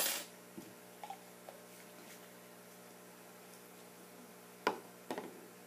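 Mostly quiet room with a few faint clicks, then a sharp knock and a short clatter near the end, from a chemical jar and glassware being handled on a tabletop.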